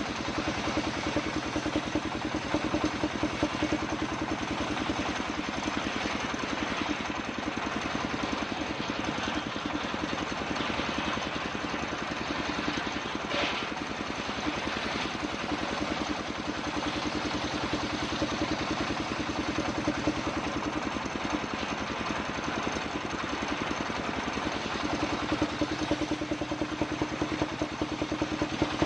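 Circular saw machine running steadily while sawing kapok wood into boards, with a rapid, even mechanical beat and a hum that swells and eases several times.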